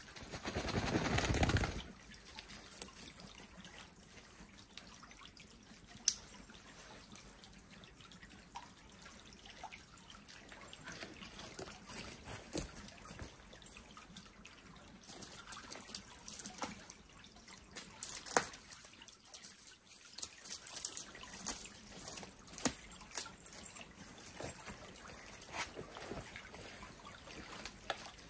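A small woodland stream trickling steadily. Scattered light clicks and taps sound over it, and a loud burst of noise comes in the first two seconds.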